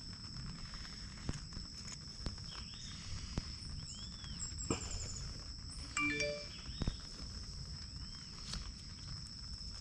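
Knife cutting and scraping rot out of a dragon fruit (pitaya) stem: scattered short clicks and taps over a steady high-pitched whine in the background.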